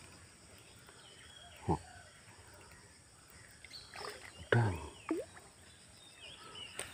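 Quiet outdoor background with a short thump about two seconds in, then from about four seconds a few short wordless grunts and exclamations from the angler as a hooked giant freshwater prawn splashes at the surface.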